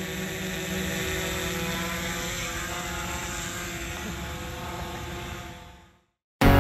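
DJI Mavic 2 Zoom quadcopter's propellers whining steadily as it flies just after take-off. The sound fades out about five seconds in, and music starts right at the end.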